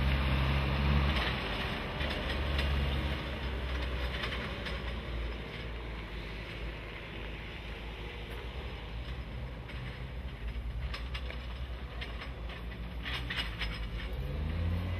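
JCB Teletruck telescopic forklift's diesel engine running as the machine works. The engine is loudest in the first few seconds, with scattered metallic clicks and knocks from the handling gear later on. The engine revs up near the end.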